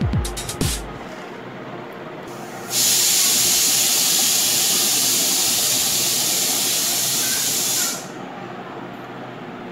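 Background music with deep beats ends within the first second. About three seconds in a loud, steady hiss starts suddenly, holds evenly for about five seconds, then cuts off.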